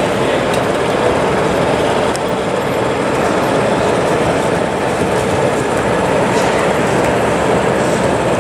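O gauge model Class 47 diesel locomotive running steadily with its coaches, its DCC sound decoder giving a continuous diesel engine note along with the rumble of its wheels on the track.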